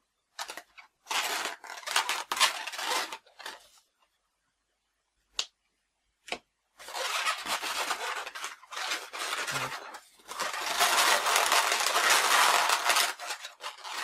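Twisted latex balloon figures being handled, their inflated latex rubbing against hands and against each other in bursts of rustling friction noise, with two short sharp clicks in the middle.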